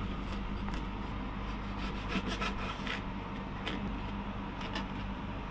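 Chef's knife slicing through raw fish fillets on a plastic cutting board, with light scrapes and taps of the blade against the board, clustered around the middle. A steady low hum runs underneath.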